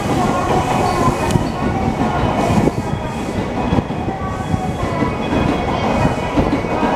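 Steady hum and rumble of an E235-1000 series commuter train standing at a busy station platform with its doors open, several steady tones running over the noise.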